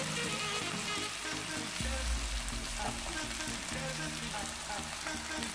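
Chicken drumettes and wings with sliced onions sizzling steadily in oil in a non-stick wok, pan-frying over medium heat to brown the meat.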